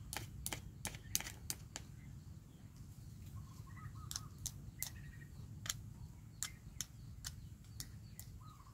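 Small plastic toy pieces clicking and tapping against each other: sharp, irregular clicks about two or three a second, over a low steady hum.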